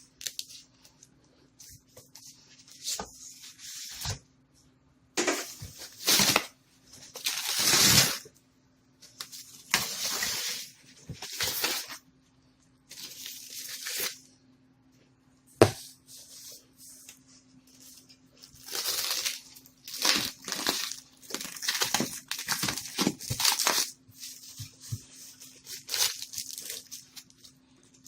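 A cardboard shipping box and its packing material being opened and handled by hand: irregular rustling, scraping and tearing, with one sharp knock about sixteen seconds in.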